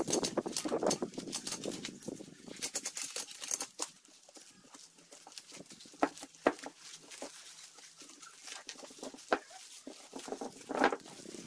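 Protective paper wrapping being torn and unwound from a new chrome motorcycle wheel rim: crackling and rustling, dense for the first few seconds and then in scattered sharp crackles.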